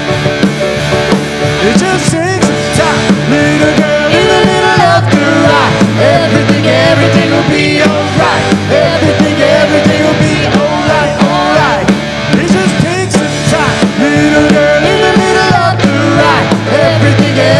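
A live country rock band playing a song: electric guitars, keyboard and drums, with a woman singing lead.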